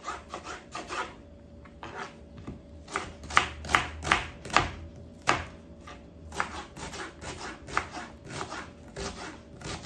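Knife chopping red onion into small pieces on a wooden cutting board: a quick, uneven run of sharp taps on the board, several a second, loudest in the middle.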